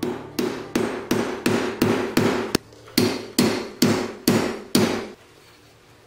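Hammer striking a piece of brass from a .50 BMG shell casing against a steel block, shaping the sides of a belt buckle: about a dozen sharp blows at roughly two to three a second, each with a brief ring, stopping about five seconds in.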